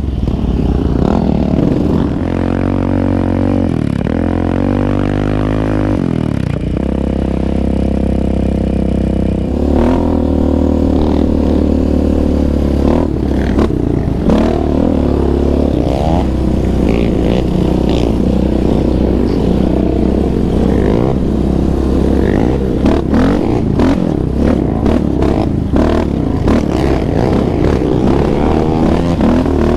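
Yamaha Raptor 700R quad's single-cylinder engine under way on a dirt trail, revving up and easing off repeatedly, with a steady stretch between about six and nine seconds in. Scattered knocks and rattles sound over the engine.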